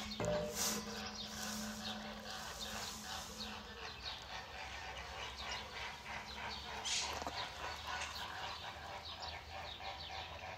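Many small birds chirping in a continuous busy chatter, with a steady low hum for the first few seconds.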